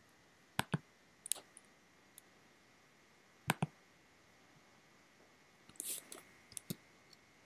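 Computer mouse clicking: a handful of sharp single and paired clicks spaced out over several seconds, with a short soft rustle about six seconds in.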